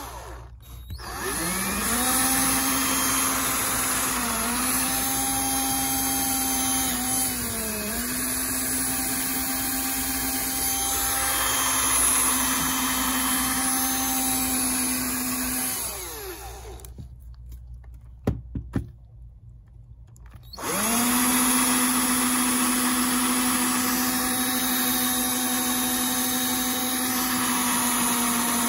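Cordless drill running as it bores into a stripped laptop screw, a steady motor whine whose pitch dips briefly twice as the bit bites. About sixteen seconds in the drill stops for a few seconds, with a couple of sharp clicks, then runs again.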